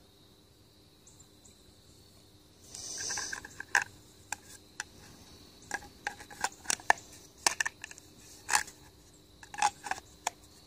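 Black Mora knives and their molded plastic sheaths being handled after a quiet start: a short scraping slide about three seconds in, then a run of sharp plastic clicks and taps.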